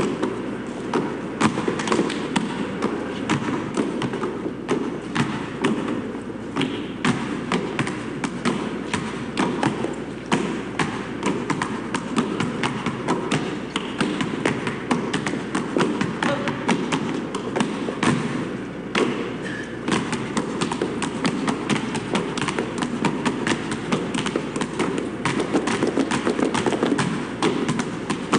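Several basketballs dribbled on pavement in an interlocking rhythm, a dense run of overlapping bounces several times a second.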